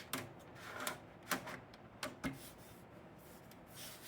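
Several faint, irregularly spaced clicks and knocks of computer hardware being handled during assembly, with a brief soft hiss near the end.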